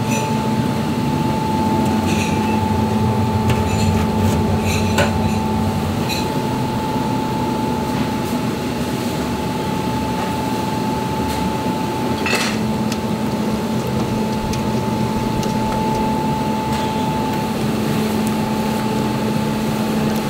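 Steady mechanical hum of kitchen equipment running, with a few sharp metal clinks of pots and utensils, the clearest one about twelve seconds in.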